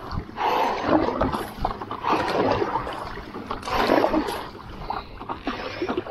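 Fast, hard paddle strokes pulling through choppy water beside an inflatable stand-up paddle board, with water splashing off the bow. About three strong surges, each a second and a half or so apart.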